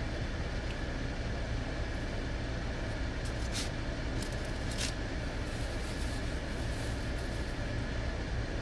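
Steady low hum of a car idling, heard from inside its cabin, with two faint short crackles about three and a half and five seconds in.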